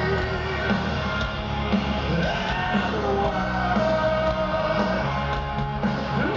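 Heavy metal band playing live through a large PA: distorted guitars, bass and drums with a sung vocal line, recorded from within the crowd.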